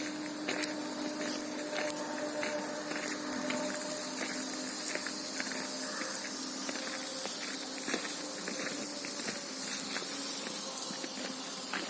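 Steady high hiss of insects outdoors, with scattered light clicks and a faint steady hum underneath.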